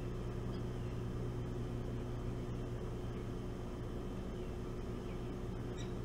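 A steady low hum, with a few faint, short high-pitched bird chirps over it, the clearest near the end.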